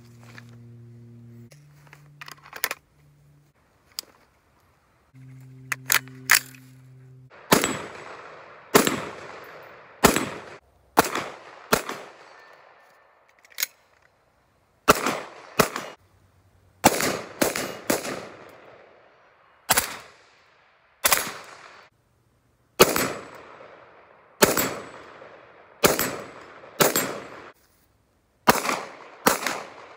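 Two low, held electronic tones at the start, then about twenty gunshots fired singly and in quick pairs at irregular spacing, each followed by a fading echo.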